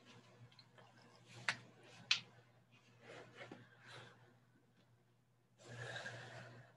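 A person moving about and settling down on a floor mat: faint rustling and handling noise with two sharp clicks, then an exhale of about a second near the end.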